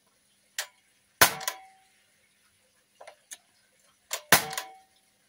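Custom L85-A2-style 4.5 mm CO2 BB rifle firing two shots about three seconds apart, each a sharp crack followed by a brief ringing tone, with lighter clicks just before each shot.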